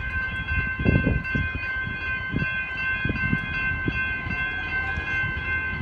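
Level crossing warning bells ringing steadily, with irregular low thumps underneath.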